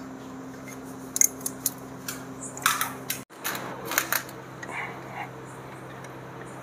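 Hand tools working on an engine: short metallic clicks and clinks of a spanner on nuts and bolts, in scattered groups, over a steady low hum.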